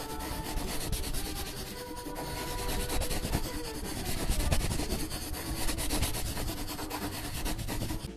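A colouring tool scribbling on paper in quick back-and-forth strokes as an area is coloured in.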